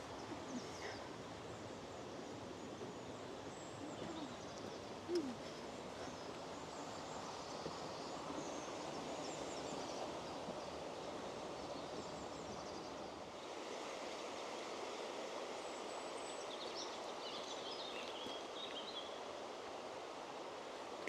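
Steady rush of the river beside the woodland path, with a short, louder pitched sound about five seconds in and faint bird chirps in the second half.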